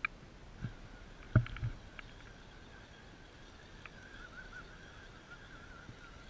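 Electric drive motor and gears of a radio-controlled scale crawler truck whining in a steady high tone that wavers as the throttle changes. A few knocks and clatters of tyres and chassis on rock come in the first two seconds, the loudest about a second and a half in.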